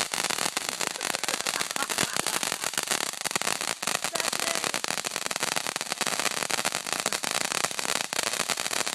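Ground fountain firework spraying white sparks: a steady hiss packed with many small crackling pops.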